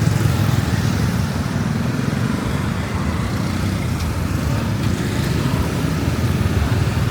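Steady road traffic: a continuous rumble of vehicle engines passing along a busy street.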